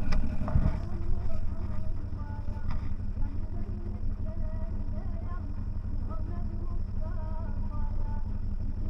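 CFMoto 1000 off-road vehicle's engine running steadily, with a knock or jolt about half a second in and another about three seconds in. A faint melodic voice or music wavers over the engine.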